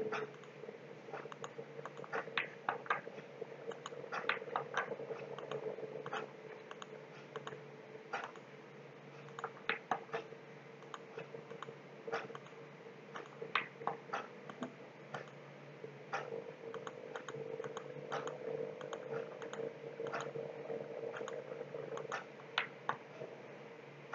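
Computer mouse button clicking at an irregular pace, single and double clicks every second or so, placing the vertices of a polygon being traced in mapping software. A steady faint hum runs underneath.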